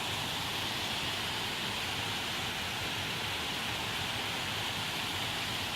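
Steady rushing of creek water, an even hiss that holds at one level throughout.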